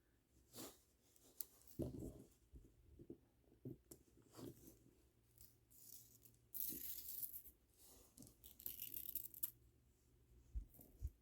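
Faint handling of plastic pony beads and string: scattered small clicks and rustles, with two longer rustling hisses, one about six and a half seconds in and one about eight and a half seconds in.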